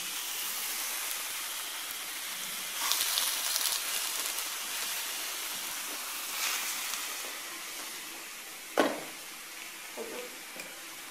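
Steady sizzling hiss from beef pieces heating in a clay tagine on the stove, swelling for a moment about three seconds in. A single sharp knock comes near nine seconds in, with two lighter taps after it.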